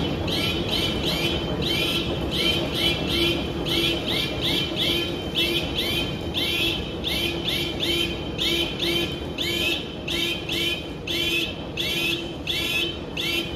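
Crushing-plant machinery running with a steady rumble and low hum. Over it, a high squeak repeats evenly about twice a second, and stops suddenly at the end.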